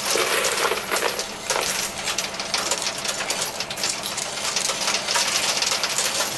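Quarters clinking and clattering on a coin pusher machine's playfield: a dense, continuous jingle of many small metal clicks as coins drop in and the pile is shoved along.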